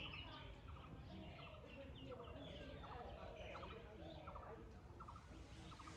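Several birds chirping and calling at once, faint, with short calls and quick rattling notes repeating throughout.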